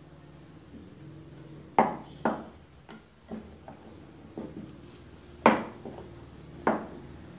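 A wooden rolling pin knocking and clacking against a round rolling board while rolling out a momo wrapper: about seven sharp knocks at uneven intervals, the loudest a little before two seconds in and about five and a half seconds in.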